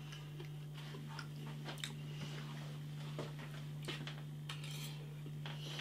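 Someone eating a plate of noodles: scattered small clicks of cutlery against the plate and faint chewing, over a steady low hum.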